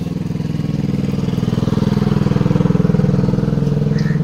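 A vehicle engine idling loud and steady, its level swelling slightly about two to three seconds in.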